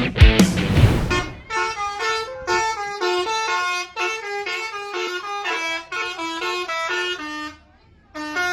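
Loud rock music cuts off about a second in. Then a bus's telolet horn, a set of tuned air horns, plays a rhythmic tune of held notes stepping up and down, pauses briefly near the end, and starts again.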